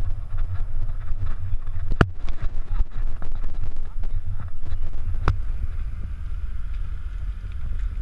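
Wind buffeting the microphone of a camera riding along on a mountain bike, with the road noise of the bike rolling over a rough paved lane. Two sharp knocks come through, about two seconds in and again a little after five seconds.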